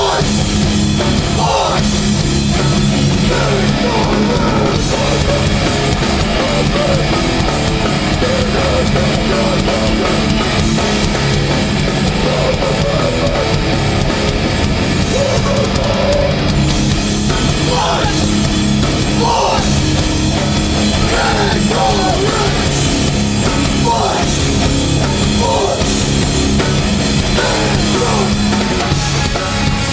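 Hardcore band playing live at full volume: distorted guitars, bass and drum kit in a dense, steady wall of sound, with shouted vocals coming in and out, more of them in the second half.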